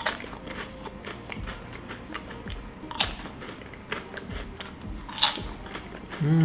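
Honey butter potato chips being bitten and chewed: three sharp crunches, near the start, about three seconds in and about five seconds in, with softer crunching in between. A short hummed 'mm' near the end.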